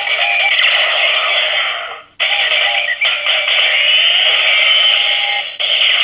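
Gabutyra De Carnival toy playing its electronic Jyuden Carnival finisher through its small built-in speaker: tinny music with a synthesized voice. The sound cuts out briefly about two seconds in and changes to a new sound just before the end.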